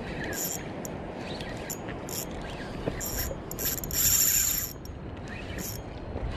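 Fishing reel cranked in short spurts as a lure is worked back, each turn a brief high gear whir, with one longer steady crank of about a second about two-thirds in. Low water and wind noise runs underneath.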